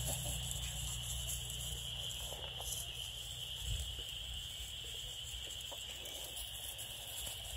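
Quiet outdoor ambience: a steady high-pitched hum runs throughout over a low rumble, with faint soft rustles of puppies' paws in dry grass.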